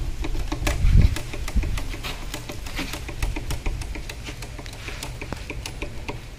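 Rapid irregular clicking and tapping from hand work on parts, with a louder low thump about a second in.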